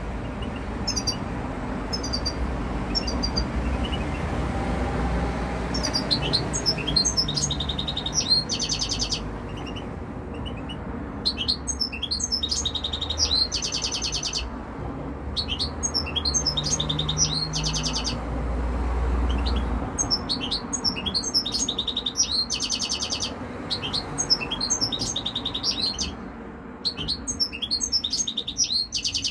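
European goldfinches singing: a few single chirps at first, then from about six seconds in, repeated phrases of rapid twittering and trills with short pauses between them. A steady low hum lies underneath.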